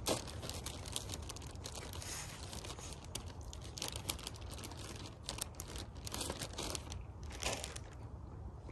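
Zip-top plastic bag of shredded cabbage crinkling and rustling as it is handled: a run of short, irregular crackles that dies away near the end.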